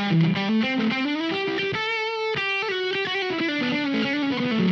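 Electric guitar, a 1981 Ibanez AS100 with humbuckers, played through a Mozztronics GD-1 Bone Breaker overdrive pedal. It plays a single-note phrase that climbs in pitch to a peak about two seconds in and then steps back down, with a thick overdriven tone.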